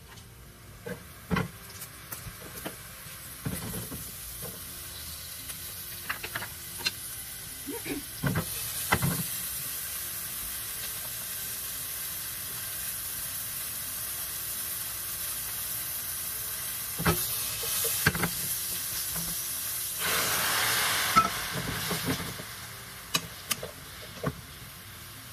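Butter and oil sizzling in a hot nonstick frying pan, with scattered clinks of utensils against the pan. The sizzle turns to a steady hiss as chopped green onions and then asparagus cook, and swells louder about twenty seconds in. Near the end, tongs click against the pan as the asparagus is tossed.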